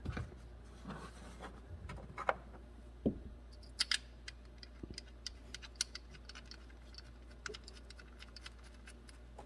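Scattered light clicks and taps of plastic parts as an ignition coil is pushed back into its spark plug well and the wiring harness around it is handled, the sharpest few coming two to four seconds in.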